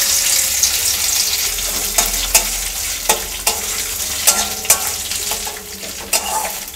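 Soaked and drained gobindobhog rice sizzling in hot white cooking oil in a metal kadai, the sizzle loudest at first and easing off. A metal spatula stirs it, knocking and scraping against the pan in sharp clicks every half second or so.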